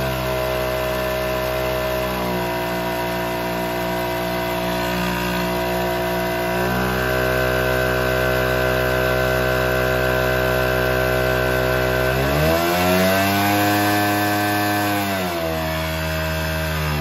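Small two-stroke engine running under load on a hydraulic-pump dyno. Its speed steps up about halfway through, rises sharply a few seconds later, holds for about three seconds, then drops back.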